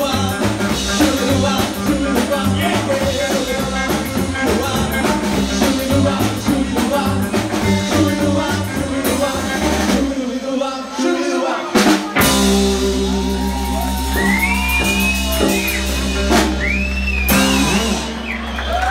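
Live rockabilly band with upright bass, hollow-body electric guitar, drum kit and singing. About ten seconds in the band thins out briefly, then a sharp hit brings in long held notes with sliding high notes over them.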